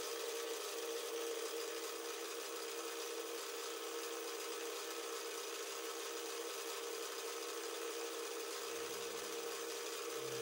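Metal lathe running steadily while a sharp-tip carbide insert turns the outer diameter of a metal workpiece: a steady machine whine, with a lower hum coming in near the end.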